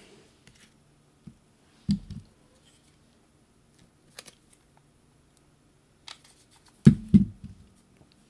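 Light taps, clicks and knocks of small craft pieces and tools being handled and set down on a work table, the loudest a pair of thuds near the end.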